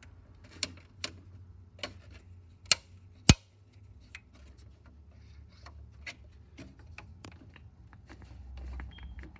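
Irregular clicks and knocks of tools and metal parts being handled on an old radio receiver's chassis while a loose switch is tightened, two sharper knocks near the three-second mark, over a low steady hum.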